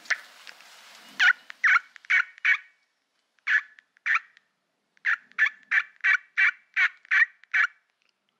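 Turkey yelps: short, sharp notes in bursts of a few, then a run of seven evenly spaced at about three a second, ending about a second before the close.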